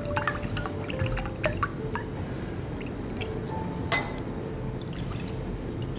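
Water poured from a glass bottle into a small steel bowl, splashing and dripping, with a sharp ringing clink about four seconds in.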